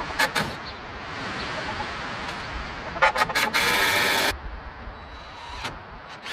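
Power drill driving screws into the wood framing: a few quick clicks, then one steady run of just under a second about three seconds in. Wind noise between the bursts.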